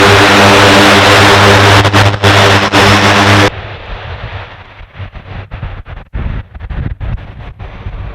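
Loud aircraft engine noise from an aircraft close by: a steady low hum of several evenly spaced tones under a strong hiss. It cuts off abruptly about three and a half seconds in, leaving gusty wind noise on the microphone.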